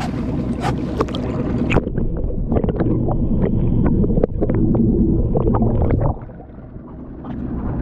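Water splashing as an action camera is plunged under the sea surface. From about two seconds in, the sound turns dull and muffled: a low underwater rumble of water churning and bubbling against the camera housing, with small clicks. It quietens after about six seconds as the camera nears the surface.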